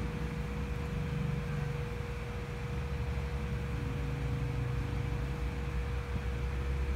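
Steady low room hum with an even hiss and a faint steady tone, with no distinct sound events.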